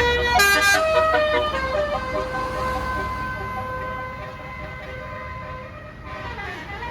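A bus's basuri telolet air horn playing a quick melody of stepped notes for about two seconds, then holding one long note that slowly fades, with a short falling-then-rising glide near the end.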